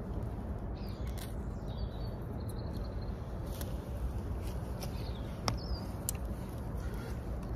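Outdoor woodland ambience: a steady low rumble with faint, brief bird chirps, and a sharp click about five and a half seconds in.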